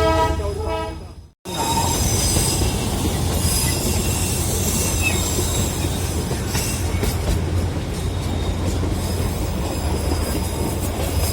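Darjeeling Himalayan Railway toy train: a horn sounding at the start dies away about a second in, and after a brief break the train runs along the narrow-gauge track with a steady rumble, thin high wheel squeal and scattered rail clicks.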